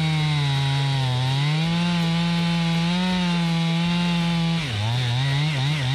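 A Stihl MS 291 two-stroke chainsaw on an Alaskan chainsaw mill runs at high revs under load, ripping a log lengthwise into boards. The engine note sags about a second in and recovers. Near the end it rises and falls over and over as the load on the chain changes.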